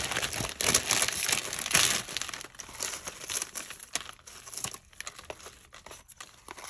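Packaging crinkling and rustling as craft items are handled and unwrapped. It is dense for the first couple of seconds, then thins out to scattered crackles.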